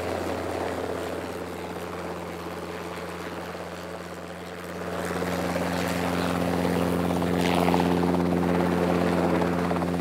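Sarang display team's HAL Dhruv helicopters flying overhead: a steady engine and rotor hum that grows louder about five seconds in.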